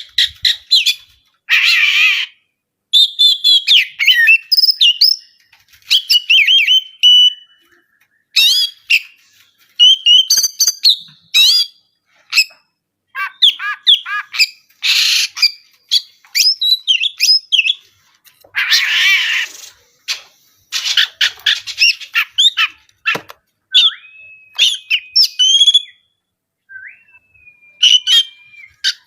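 Oriental magpie-robin (kacer) in full, agitated song: fast varied chirps and trills broken by harsh rasping bursts, with two long level whistles near the end. This is the excited, fighting-style 'konslet' song, used as a lure to provoke silent birds into singing.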